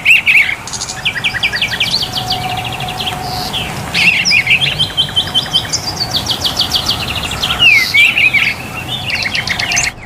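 Several songbirds chirping and trilling: quick runs of sharp, high chirps and repeated trills, one after another, over a steady hiss.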